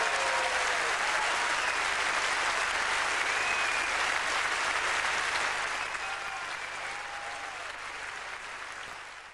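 Large theatre audience applauding at the end of a song, a dense steady clapping with a few voices calling out over it. The applause eases off and fades out near the end.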